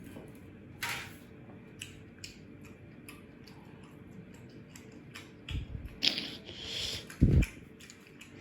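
Eating sounds: scattered small clicks and scrapes, like a spoon on a plate, with chewing and slurping. A loud dull thump comes a little after seven seconds.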